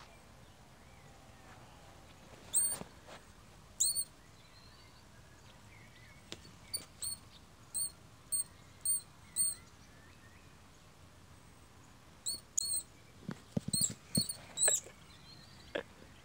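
Bank vole giving a string of short, sharp, high-pitched distress squeaks, in clusters with pauses between, as it is caught and batted about by a cat.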